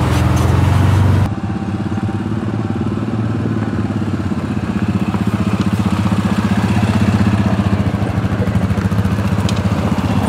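Engines of a side-by-side UTV and ATVs running at low speed as they pass close by one after another, a steady low engine note.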